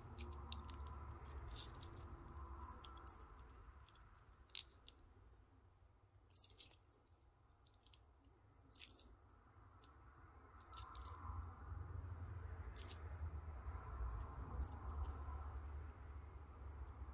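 Small metal-and-plastic multimeter test-lead accessories (crocodile clips, probe pin tips, spade lugs) clicking and clinking as they are handled and gathered in a palm. There are about nine separate sharp clicks, the loudest around six and nine seconds in, over a faint low handling rumble.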